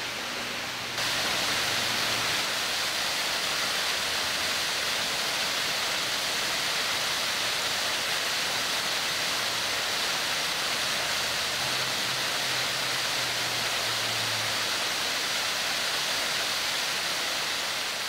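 Steady rushing of a 35-foot waterfall plunging over a rock ledge into a pool. It jumps louder about a second in and then holds even.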